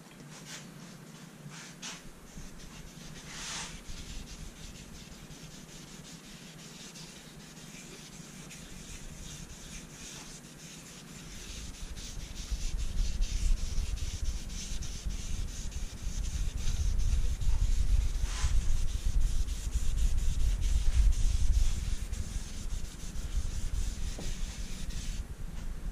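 A cloth pad soaked in dye rubbing back and forth over the wooden top of a guitar body, a steady scratchy rubbing. It grows louder about halfway through, when a low rumble joins it.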